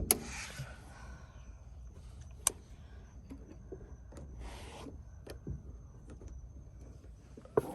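Hands working a car's overhead dome light fitting: sharp plastic clicks at the start, about two and a half seconds in and near the end, with two short bursts of rustling.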